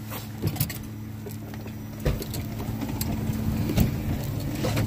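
Golf cart running with a steady low hum, picking up speed and growing louder from about two seconds in. A few knocks and rattles come from the ride and from handling of the phone.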